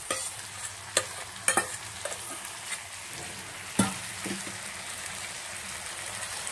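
Boiled noodles tipped from a steel bowl onto vegetables frying in a hot pan: a steady sizzle, with a few sharp clinks of a steel slotted spoon against the bowl and pan, one of them near four seconds in.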